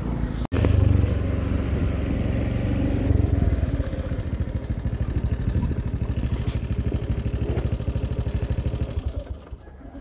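Motorcycle engine running while riding along a dirt road, heard from on the bike, with a steady low pulsing; it drops away near the end.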